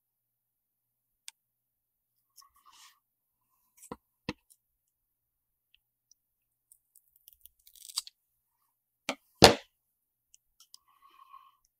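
Scissors snipping a strip of thermal pad, with light handling clicks and soft crinkling of the pad's plastic film. A louder knock comes near the end.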